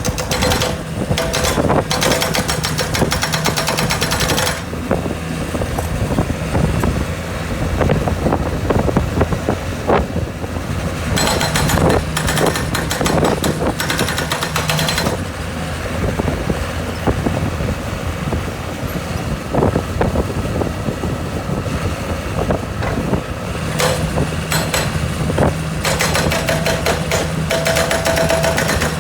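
Hydraulic breaker hammer on a Cat skid steer pounding concrete in three spells of rapid hammering lasting a few seconds each, about a second in, midway and near the end. The skid steer's engine runs steadily throughout, with scattered knocks between the spells.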